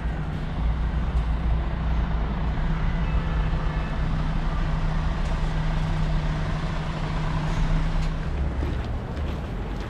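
Steady low hum of a large engine running, over general street noise; the hum stops about eight and a half seconds in.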